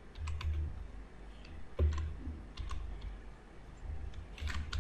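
Computer keyboard keys clicking as a word is typed: single keystrokes at an uneven pace, about ten in all, with a short quick run near the end.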